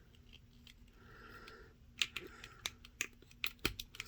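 Small plastic clicks and taps from a plastic action figure being handled as its head is pressed onto the neck peg: a brief scrape about a second in, then a run of sharp clicks.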